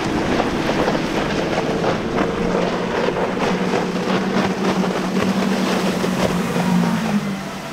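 Cigarette 39' GTS powerboat's triple Mercury 350 outboards running at high speed, a steady engine note that dips slightly near the end, over spray hiss and wind noise on the microphone.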